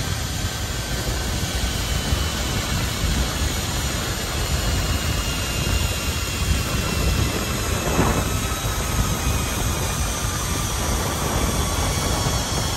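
Wind rushing over a handheld phone's microphone during a fast zip line ride, with the zip line trolley running along the steel cable: a steady rushing noise with a faint high whine that slowly shifts in pitch.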